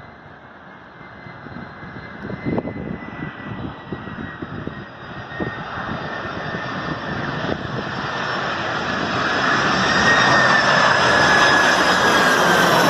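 Boeing 767-300 freighter's jet engines growing steadily louder as it approaches and passes low, with a high whine that falls in pitch near the end.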